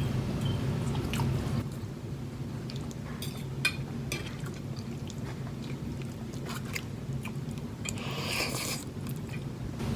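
Close-up chewing and wet mouth sounds of people eating spaghetti, with small scattered clicks and a longer wet noise about eight seconds in, over a steady low hum.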